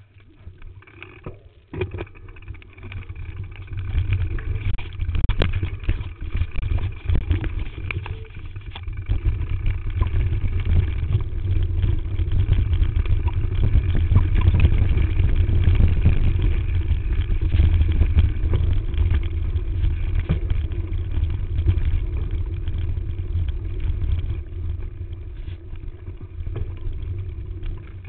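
Mountain bike riding over a rough, rocky trail: wind rushing over the bike-mounted camera's microphone, with tyres rolling over stones and the bike knocking and rattling over bumps. The wind noise builds about four seconds in.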